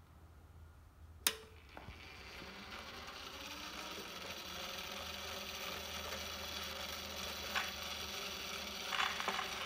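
Edison Standard cylinder phonograph starting up: a sharp click about a second in, then the spring-wound motor and gears whir up to speed with a rising tone and settle into a steady, slowly building whir. A few light clicks near the end as the reproducer is handled.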